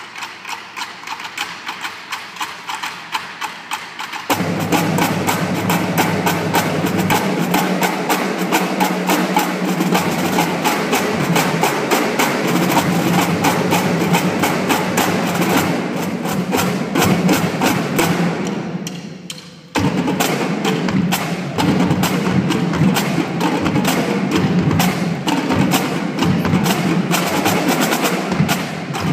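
Marching drumline, with snare drums, tenor drums and bass drums, playing a percussion piece. It opens with light, quick, even clicks; the full line comes in about four seconds in, swells and stops briefly at about twenty seconds, then goes on.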